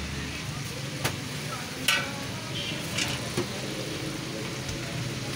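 Chopped chicken sizzling on a flat steel griddle, with a few sharp clicks of a metal spatula against the griddle, the loudest about two seconds in.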